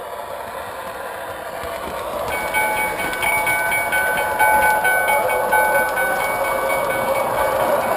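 MTH O-gauge model train running on three-rail track, its rolling noise growing louder. From about two seconds in, its onboard sound system sounds a signal of several steady tones together, held for about five seconds.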